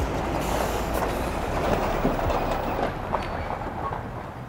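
Semi-trailer truck passing close by, a heavy, even rumble of engine and tyres that eases off after about three seconds.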